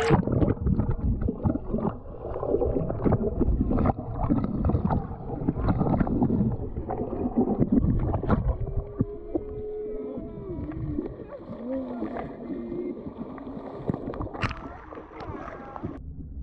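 Muffled sloshing of water with many knocks and clicks against the camera, and a short wavering low tone about halfway through.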